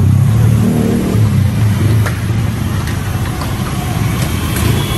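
A motor vehicle's engine running close by and revving, strongest in the first second or so and then easing off. A few light clinks of utensils on plates about two seconds in and near the end.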